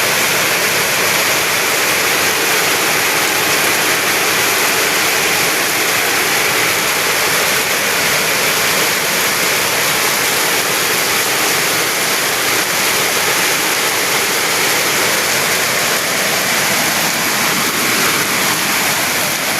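Heavy rain pouring down in a steady, loud downpour with no letup.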